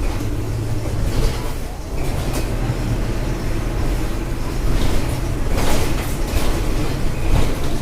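Volkswagen Volksbus 17.230 EOD city bus's diesel engine running as the bus drives, a steady low drone, with rattling and clatter from the bus body, heaviest about five to six seconds in.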